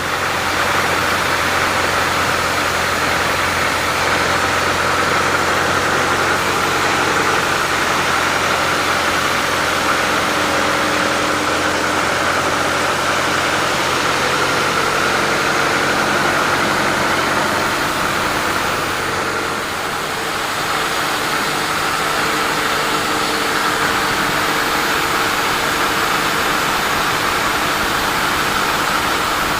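Sawmill machinery running, a loud steady mechanical noise with an engine hum underneath. The low hum drops away about twenty seconds in while the higher noise carries on.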